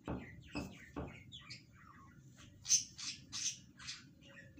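Small birds chirping and squawking in quick, short calls, several a second, loudest about halfway through.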